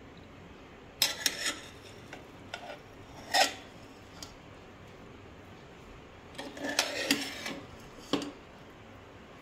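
Metal ladle scraping and knocking against the inside of a pressure cooker while fluffing and mixing cooked potato biryani rice. There are a few separate scrapes and clinks, with a longer run of scraping in the second half.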